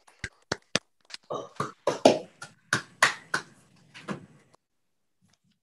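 Scattered applause over a video-call connection: uneven hand claps, a few at a time and sometimes overlapping, with the gaps between claps cut to silence. The clapping dies out a little over four seconds in.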